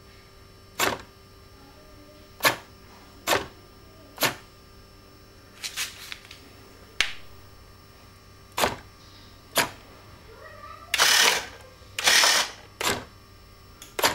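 A series of sharp, separate clicks, roughly one a second with a quick cluster about six seconds in, then two longer rasping noises about eleven and twelve seconds in, followed by two more clicks.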